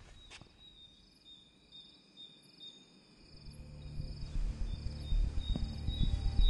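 Crickets chirping in a steady night chorus. About three seconds in, a low rumbling drone comes in and swells, with a few soft thuds near the end.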